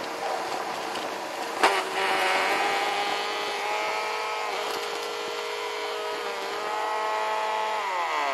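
Bissell Rewind Premier Pet upright vacuum cleaner running while it sucks up lawn grass, with a sharp knock about one and a half seconds in. Its motor pitch shifts as it takes in grass and clogs a little, then winds down near the end.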